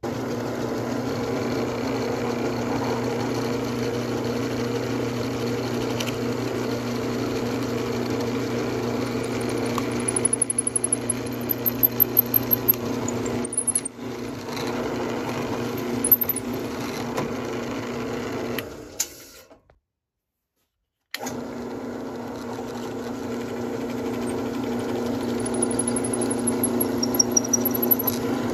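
Drill press motor running steadily while a twist bit bores holes through clamped oak pallet boards, with a burst of rapid clicking from about ten to thirteen seconds in. The sound cuts out for about two seconds, then the drill press runs on.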